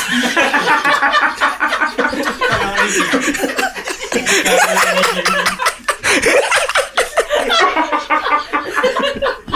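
Several men laughing hard together in a long, loud fit of laughter.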